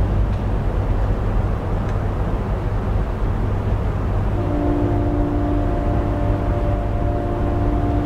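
Synthesized recreation of a distant Nathan K5LA five-chime locomotive horn: over a steady low rumble, one long horn chord starts about halfway through and is still sounding at the end.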